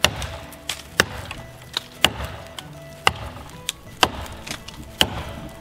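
Hand-forged axe chopping into a standing poplar trunk, cutting a felling notch: sharp strikes about once a second, with lighter knocks between them.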